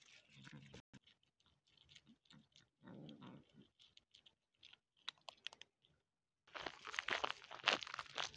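Cats crunching dry kibble: a faint, irregular run of small crunches and clicks. About six and a half seconds in it breaks off and louder crunching steps on gravel take over.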